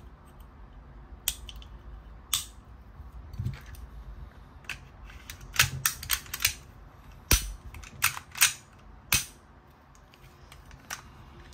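A 9mm Glock pistol being reassembled by hand: a dozen or so sharp metallic clicks and snaps of the slide and parts going together, some coming in quick clusters of two or three.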